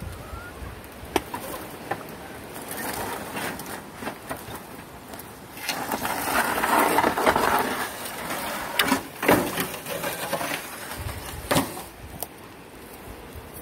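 A dog digging and nosing through dry mulch and debris under corrugated roofing iron: rustling and scraping, loudest about six to eight seconds in, with scattered sharp knocks and clicks.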